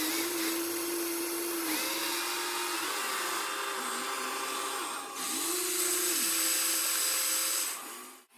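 Small electric motors of radio-controlled construction models whining, their pitch sliding up and down as they start and stop, over a high gear hiss. The sound drops away sharply just before the end.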